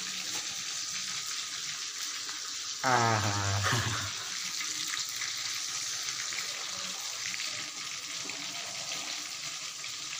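Fish pieces deep-frying in hot ghee, sizzling steadily. About three seconds in, a short low hum lasts about a second.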